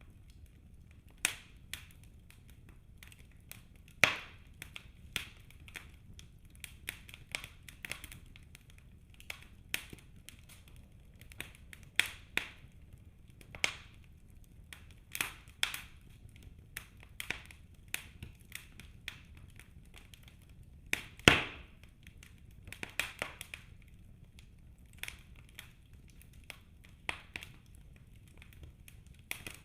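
Wood fire burning in a fireplace: irregular crackles and sharp pops from the logs over a low steady hiss, with two louder pops, about 4 seconds in and about 21 seconds in.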